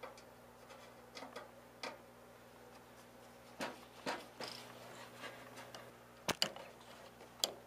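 Scattered light metallic clicks and taps of a long screwdriver and screws against the sheet-metal chassis of a Behmor 1600 coffee roaster being screwed back together, with a sharper knock about six seconds in and another near the end.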